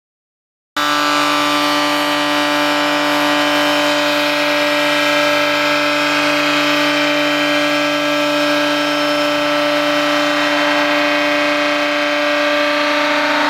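A robot-held PushCorp spindle machining down a weld bead inside a steel pipe: a loud, steady whine over a harsh grinding noise, starting abruptly just under a second in.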